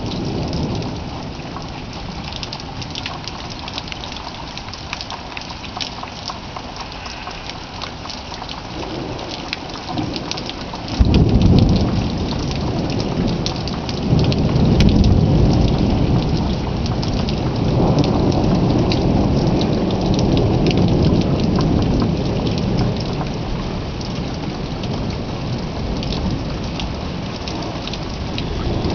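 Thunderstorm: steady rain falling, with thunder cracking suddenly about a third of the way in, then a long, deep rolling rumble that slowly fades.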